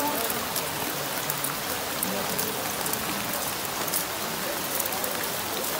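Steady pattering and splashing of water, with many small sharp drips and splashes.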